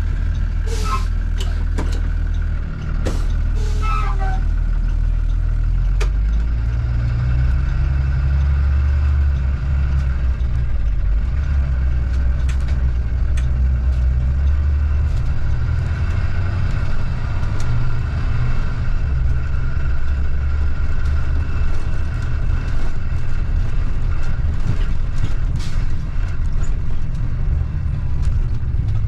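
Blue Bird school bus heard from inside the cabin while driving: a steady low engine and road rumble with a faint steady whine. A few short squeaks and clicks in the first few seconds, and scattered rattles after that.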